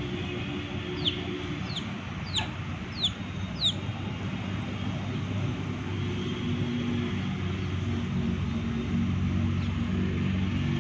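A baby chick peeping: five short, high calls, each falling in pitch, about one every 0.6 seconds in the first four seconds. A low steady drone runs underneath and grows louder in the second half.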